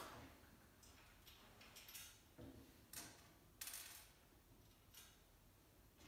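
Faint, scattered clicks and light metallic clinks of small nuts, bolts and washers being picked up and handled on a tabletop, about one a second, with a short scrape a little after the middle.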